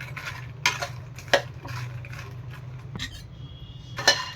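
A stirring utensil knocking and scraping against a kadhai as makhana (fox nuts) are stirred while frying in ghee: a few separate sharp clicks, then a quick cluster of them near the end, over a steady low hum.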